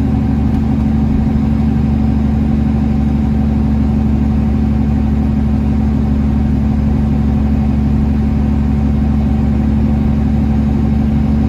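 Semi truck's diesel engine running steadily under load, heard from inside the cab, with the Jake (engine) brake holding the heavy truck back on a steep downgrade.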